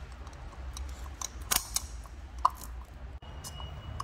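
Sharp plastic clicks and taps from an oil filter housing cap being handled and its O-ring worked off, a few in the middle, over a low steady hum.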